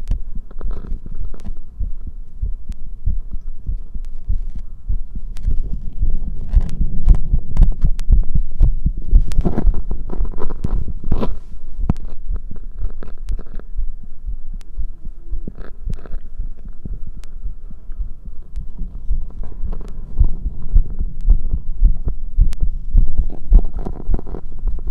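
Human heartbeat heard close at the chest: a continuous run of low, dull thumps, with a few louder bursts of noise over them now and then.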